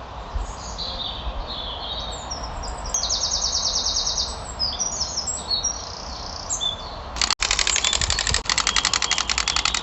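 High bird-like chirps and short whistled glides. A rapid trill comes about three seconds in, and a louder rapid trill runs through the last two and a half seconds, briefly cut off just before it.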